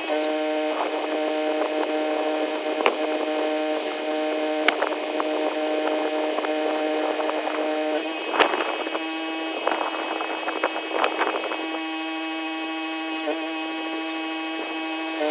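Pressure washer running with a steady pitched hum, broken by scattered sharp clicks and a few rough bursts of noise between about eight and eleven seconds in.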